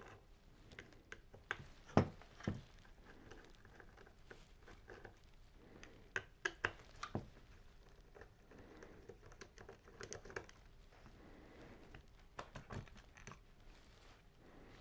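Scattered light clicks and knocks of power-tool parts being handled and fitted together. The sharpest knock is about two seconds in, with a run of clicks around six to seven seconds.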